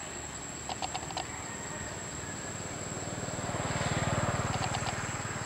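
A passing engine with a fast low throb, growing louder to a peak about four seconds in and then fading.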